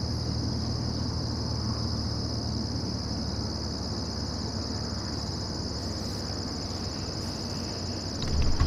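A steady, high insect chorus over a low, steady drone from the distant light aircraft's engine idling as it taxis. Low thumps on the microphone near the end.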